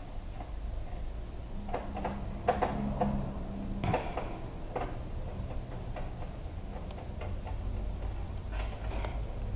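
Small clicks and taps of a screwdriver and screws against the metal PC case while motherboard screws are driven in, most of them bunched in the middle, over a steady low hum.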